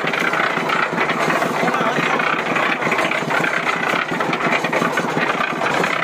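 Concrete mixer running, its drum turning with water and clothes churning inside: a steady, loud mechanical rattle with water sloshing.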